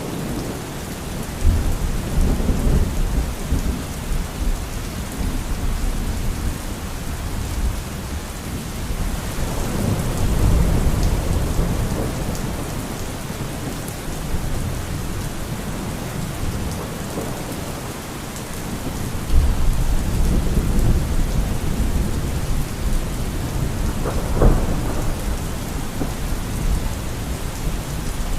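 Thunderstorm: steady heavy rain with rolling thunder rumbling in low swells three times, and a sharper thunderclap near the end.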